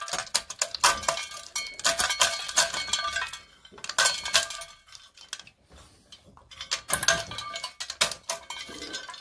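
Hand-cranked stainless steel nutcracker cracking hazelnuts, the shells cracking and the nuts and shell pieces clattering into a stainless steel tray in quick, irregular clicks. The clatter stops for about two seconds midway, then starts again.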